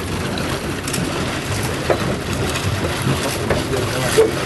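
Wind buffeting the microphone over water washing against a small boat, a steady rushing noise with a couple of brief knocks, about two seconds in and near the end.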